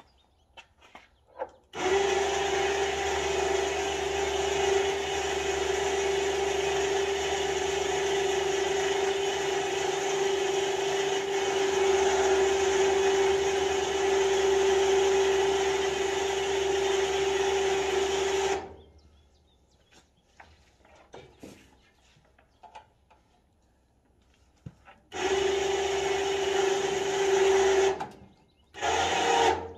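Electric winch motor running with a steady whine for about seventeen seconds, then stopping. Two shorter runs follow near the end as the cable to the lawn tractor is drawn tight.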